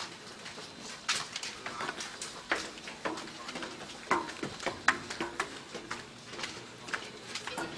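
Footsteps climbing a stairway, an irregular run of short knocks several a second, mixed with knocks from the handheld camera being jostled.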